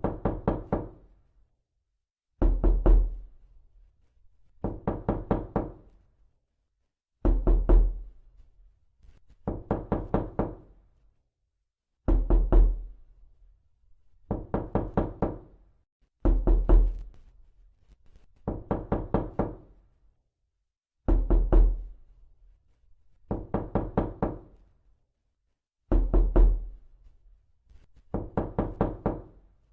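Repeated knocking in even bursts of several quick knocks, about one burst every two seconds. Heavier, deeper bursts alternate with lighter ones.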